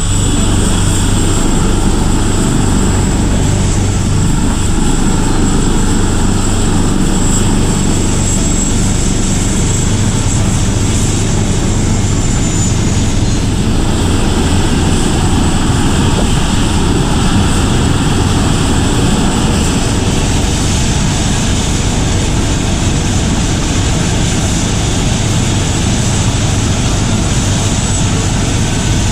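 Aircraft engine running steadily, with a thin high whine held above a low, even rumble.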